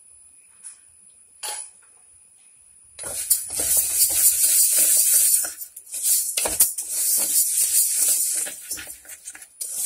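A wooden spatula stirs moong dal frying in ghee in an aluminium pressure cooker, with a rustling, scraping hiss of the lentils against the pan. It is quiet at first apart from a couple of light clicks. The stirring starts about three seconds in and goes on in quick, uneven strokes.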